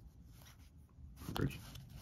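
Paper play-money bills being thumbed and flicked through in the hand, with a few faint papery flicks. About one and a half seconds in there is a short, low sound, louder than the flicks.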